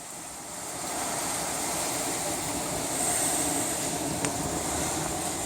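Heavy thunderstorm rain pouring down in a steady hiss.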